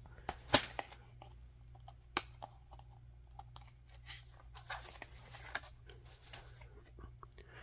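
Hands handling a thick cardboard lift-the-flap board book: a few light taps and clicks, then the scrape and rustle of a stiff cardboard flap being lifted, about halfway through.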